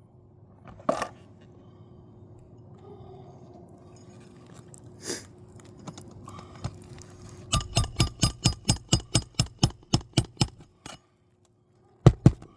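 Hammer driving a roofing nail into an asphalt shingle: a quick run of about fourteen ringing strikes at roughly four a second, then two more strikes near the end. A single knock comes about a second in.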